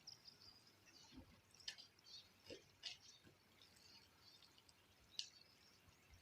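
Near silence: quiet outdoor background with a few faint, brief high-pitched ticks or chirps scattered through it.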